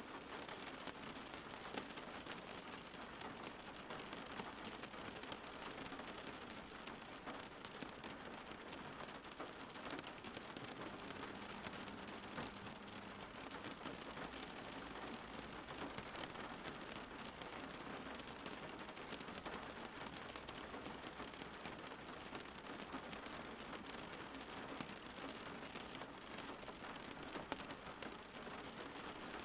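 Steady rain falling: an even hiss of many drops, with faint individual drop ticks throughout.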